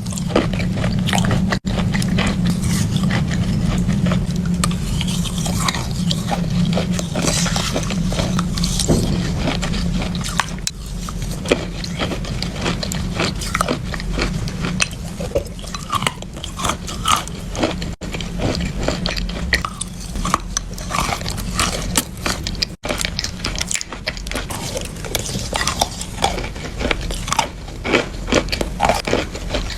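Close-miked biting and chewing of wetted chalk, a dense run of sharp crunches and crackles over a steady low hum. It is broken by two or three abrupt splices between clips.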